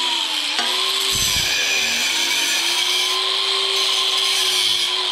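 Angle grinder cutting a thin metal rod held in a vise. The motor runs with a steady whine over the hiss of the disc in the cut, and its pitch sags briefly a couple of times as it bites.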